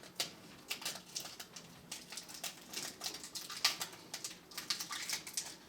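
Irregular light clicks and crinkling rustles of hands handling cables and tape, with no steady rhythm.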